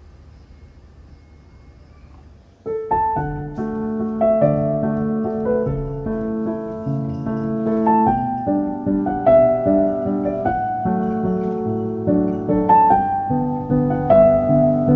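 A faint low hum, then piano music comes in abruptly about three seconds in and plays on with several notes held together.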